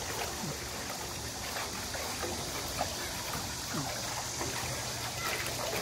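Pool water trickling and lapping as a small terrier paddles through it, with a steady low hum underneath.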